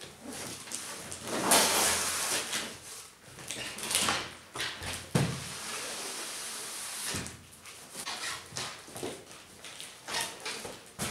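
Cardboard boxes handled on a wooden workbench: the outer shipping carton's flaps and sides scraping and rustling as it is turned over, a thump about five seconds in as it comes down upside down, then the printed inner box sliding out against the cardboard and bench.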